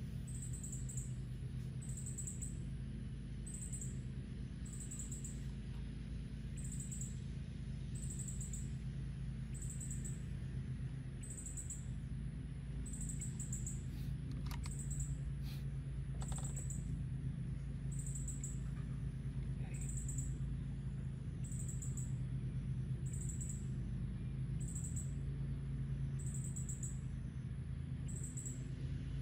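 Box fan running with a steady low hum, under a high-pitched insect chirp that repeats about once a second over a steady high buzz. A couple of faint clicks come around the middle.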